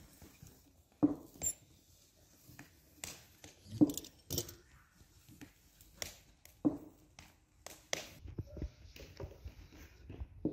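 Scattered light knocks and clicks of kitchen utensils being handled on a silicone mat, about a dozen at uneven intervals, some with a short low ring.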